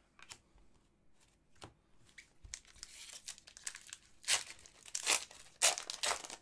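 An Upper Deck hockey card pack's wrapper being torn open and crinkled by hand: light handling at first, then ripping and crinkling from about two and a half seconds in, loudest in three rips near the end.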